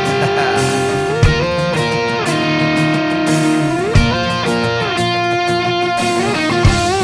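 Background music: an instrumental passage led by electric guitar, with held lead notes that slide up and down in pitch.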